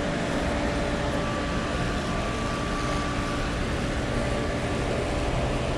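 Steady background noise of a large indoor store: an even rushing hum with a few faint steady tones and no distinct events.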